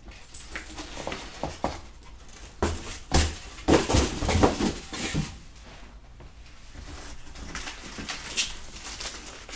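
Unpacking noises: rustling and light knocks as a bubble-wrapped board and loose plastic packing straps are handled. The busiest, loudest stretch comes around four to five seconds in, and it is quieter after that.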